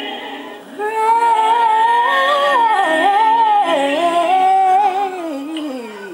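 A solo voice singing a long gospel melismatic run, with quick turns up and down in pitch, that comes in about a second in and slides down at the end.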